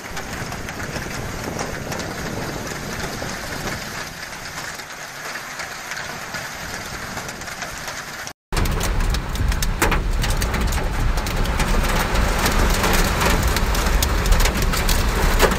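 Heavy hail and rain storm: a steady hiss of downpour. About eight seconds in it cuts to a louder recording inside a car, with hailstones clicking sharply on the windshield and body over a low rumble.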